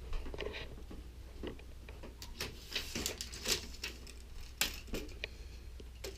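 Handling noises as a tape measure is set against a model: scattered light clicks and rattles, busiest from about two to five seconds in, over a steady low hum.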